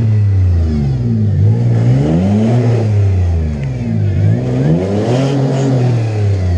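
Toyota Tacoma's engine revving up and down under load, surging in pitch about five times, as the truck is driven up over rocks.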